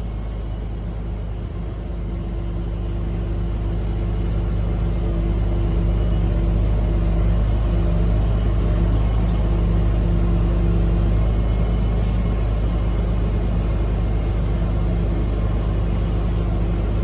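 Steady low vehicle rumble with a few constant hums in it, growing slightly louder over the first few seconds.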